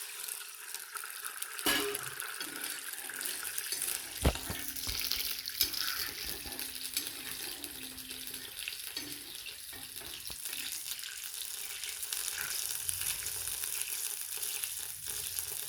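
Water just added to hot ghee and cumin seeds sizzling and hissing in the pan as the decoction heats toward the boil. A few knocks on the pan, the loudest about four seconds in.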